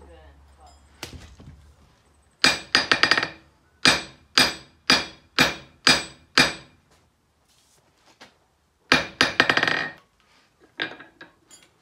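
Hammer blows on metal, each with a short metallic ring. There is a quick flurry, then six evenly spaced single strikes about two a second, another flurry, and a few lighter taps near the end.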